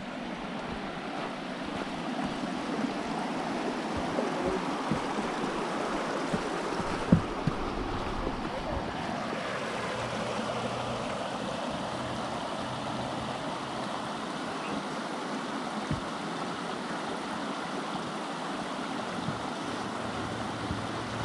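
Steady rushing of a creek, with a few light knocks here and there.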